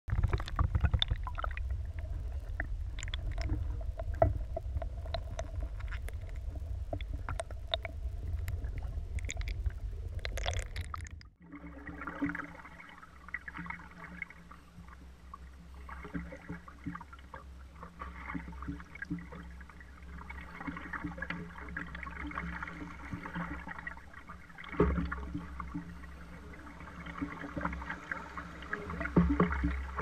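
River water heard from a canoe. For the first eleven seconds it is a muffled, rumbling churn full of clicks and splashes, with the camera at or under the water surface. After a sudden change it becomes a steadier rush of water rippling past the canoe's hull, with a couple of louder paddle splashes near the end.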